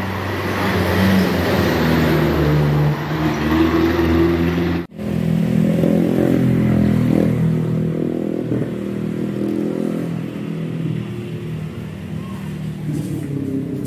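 A motor vehicle engine running close by, its pitch steady with small shifts, cutting out for an instant about five seconds in.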